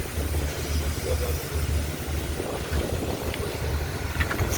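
Engine running steadily at idle, a low hum that throbs about twice a second, with a few light clicks near the end.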